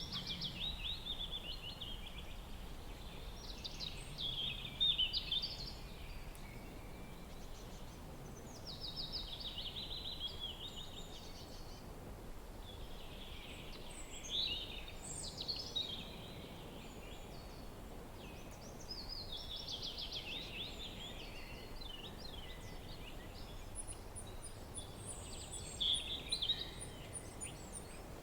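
Songbirds singing outdoors: a bird repeats short phrases of rapid, falling trilled notes about every five seconds over a soft, steady wind rush, and a series of thin, very high notes joins near the end.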